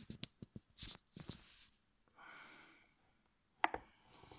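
Precision screwdriver turning a small screw in a 2.5-inch hard drive's metal casing: faint clicks and scrapes of the bit against the screw head, a soft hiss in the middle, and one sharper click about three and a half seconds in.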